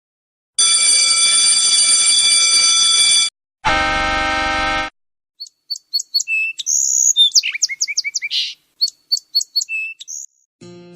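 A steady electronic-sounding tone lasting almost three seconds, then a shorter buzzing tone, then a run of quick bird-like chirps and whistles.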